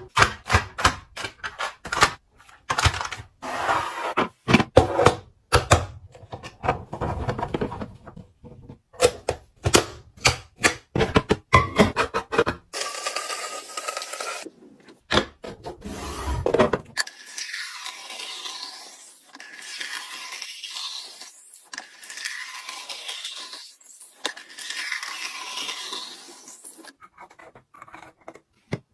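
Food containers and packaging being handled and set down: a quick run of clicks, knocks and scrapes, turning about halfway through to a softer, higher rustling.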